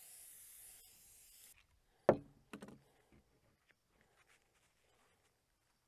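Aerosol can of spray adhesive hissing for about a second and a half, then cutting off. About two seconds in comes a sharp knock, with a smaller one just after, as the can is set down on the plywood table.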